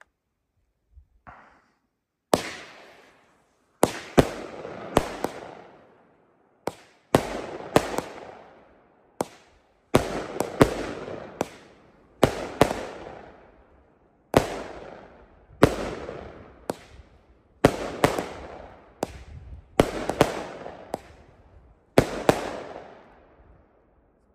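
DC consumer firework cake firing its shots: a run of sharp bangs, often in quick pairs or clusters, each trailing off in a long echo, starting a couple of seconds in and going on for about twenty seconds.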